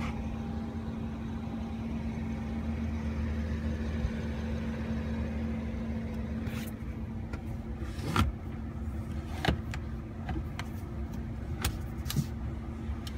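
Steady low hum inside a Rolls-Royce Wraith's cabin, broken by a few sharp clicks and knocks. The loudest click comes a little past halfway.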